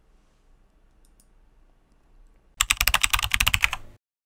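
Rapid computer-keyboard typing: a fast, even clatter of keystrokes starting about two and a half seconds in, lasting just over a second and cutting off abruptly. Before it there is only faint room tone with a couple of soft clicks.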